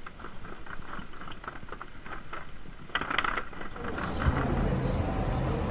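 Light rhythmic ticking, then from about four seconds in the steady low hum of a motor vehicle's engine.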